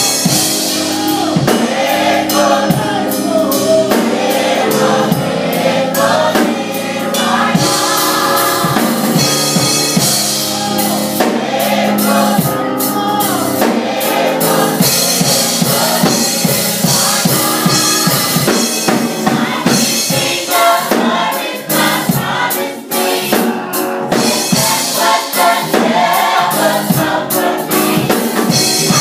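Young adult gospel choir singing with a drum kit and band accompaniment.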